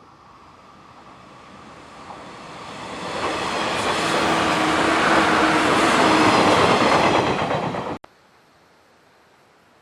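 Train passing on the Sanyo Main Line, growing louder over a few seconds as it approaches and runs past, then cut off suddenly about eight seconds in.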